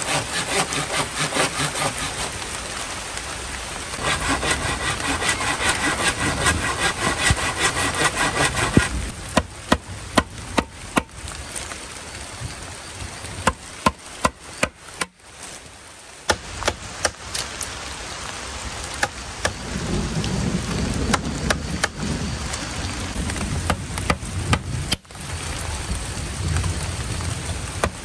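Bamboo pole being sawn in quick back-and-forth strokes, then, from about nine seconds in, sharp irregular knocks of a machete blade striking and notching the bamboo. Steady rain hisses underneath throughout.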